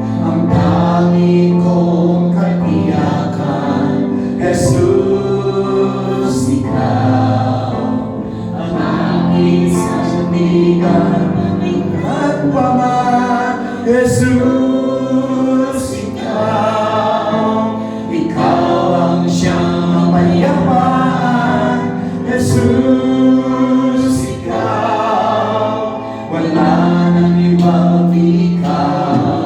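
A group of voices singing a slow Tagalog worship song together with instrumental backing, in long held phrases.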